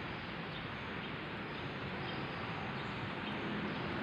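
Steady background noise with a few faint, brief high chirps.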